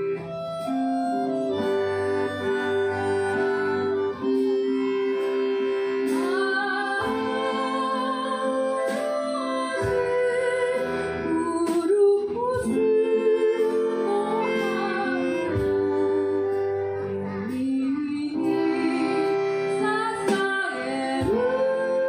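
Live acoustic music: a woman singing with acoustic guitar and an accordion holding sustained chords beneath her. The accordion plays alone at first, and the voice comes in about six seconds in, singing in phrases.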